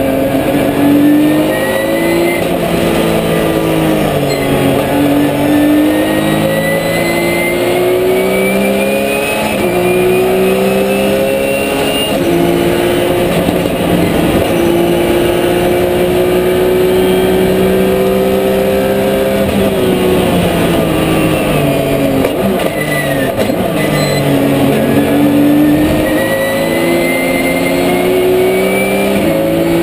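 Porsche 997 GT3 Cup's flat-six engine heard from inside the cockpit, accelerating up through the gears with the pitch climbing between shifts, then holding high revs flat out. About two-thirds through the revs drop through several downshifts under braking, then it accelerates hard again and drops once more near the end.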